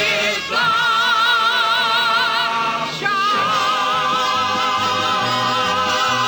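Music with a singing voice holding two long high notes with a wide vibrato: the first about half a second in, the second from about three seconds in.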